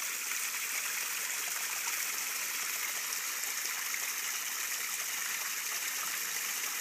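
Water splashing and trickling steadily at the surface of a koi pond, an even rushing sound with no breaks.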